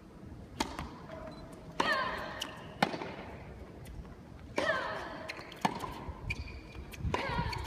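Tennis rally: rackets strike the ball about once a second. On every other shot a player lets out a short vocal cry that falls in pitch.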